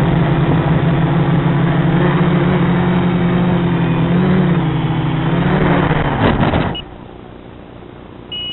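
Deadcat FPV quadcopter's Sunnysky brushless motors running with a steady buzzing drone that wavers slightly in pitch, then spooling down quickly about six and a half seconds in. After that only a faint hiss remains, with a short high beep near the end.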